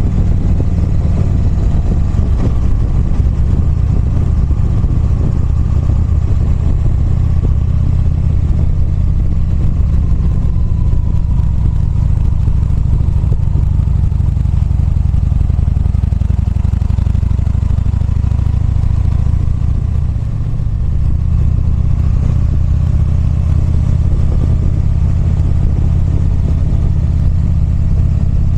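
Motorcycle engine running steadily under way, with a brief dip in level about twenty seconds in.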